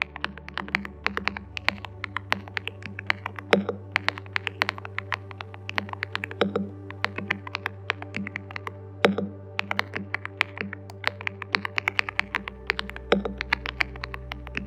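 Fast, continuous typing on a ZEN 65 custom mechanical keyboard: a dense run of key clicks with a few louder, deeper strokes. Soft background music with low sustained tones plays underneath.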